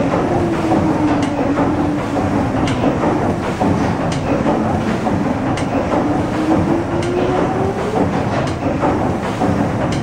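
A paddle steamer's 1946 Rankin & Blackmore triple-expansion steam engine running under way: a steady mechanical clatter, with a sharp click about every second and a half and a wavering mid-pitched tone.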